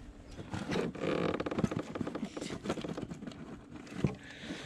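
A quick run of small clicks, rattles and scrapes as a hooked bass is unhooked with pliers, the metal tool working against the hook and lure in the fish's mouth.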